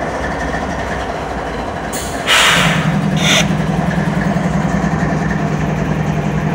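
Idling CSX diesel locomotive with a steady engine rumble. About two seconds in comes a loud hiss of air, and a steady low hum sets in and holds.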